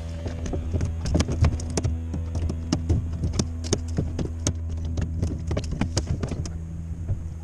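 Fishing tackle handled by hand: quick, irregular clicks and taps, several a second, over a steady low hum.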